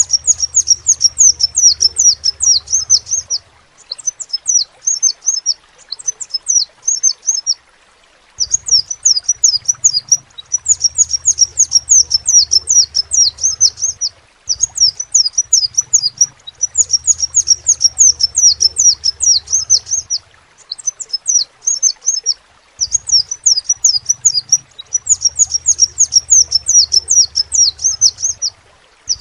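Crimson sunbird (sepah raja) singing: rapid, high-pitched trilling phrases of sharp, quickly falling notes, each phrase lasting two to four seconds with brief pauses between.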